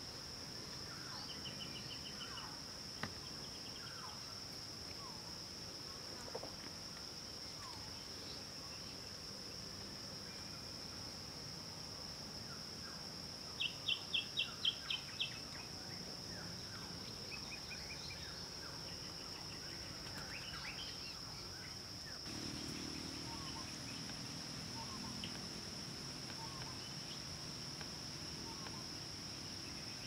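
Woodland ambience: a steady high-pitched insect drone with scattered short bird chirps and calls. About fourteen seconds in, a bird gives a quick run of about seven sharp notes, the loudest sound here.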